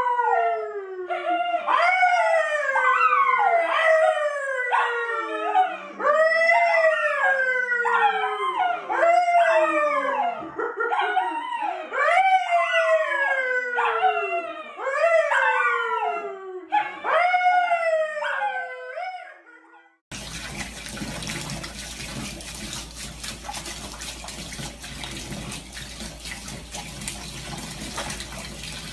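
A dog howling over and over, a string of falling, wavering howls about one a second. After some twenty seconds it cuts off and a steady rush of running water follows.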